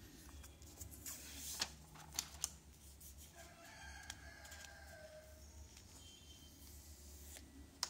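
Light taps and rubbing of fingers on a phone's aluminium back as it is turned over in the hands, a few sharp taps in the first couple of seconds. About three seconds in, a faint drawn-out animal call, about a second and a half long, sounds in the background.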